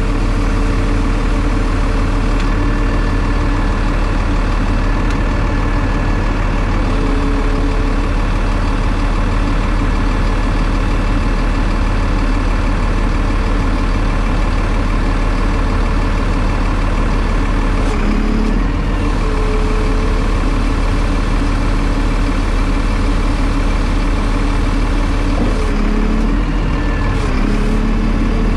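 Mercedes MBE900 diesel engine of a Freightliner M2 roll-off truck running at idle while it powers the hydraulic tarp arm. It is a steady hum whose pitch shifts briefly about two-thirds of the way through and again near the end.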